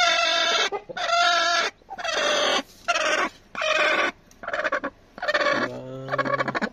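Broody hen squawking loudly as she is handled on her nest, with about six harsh calls roughly a second apart and a lower, longer call near the end: a sitting hen protesting at being lifted off her eggs and chicks.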